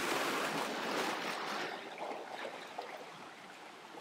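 Rushing, water-like noise, loudest at the start and fading away over the next few seconds.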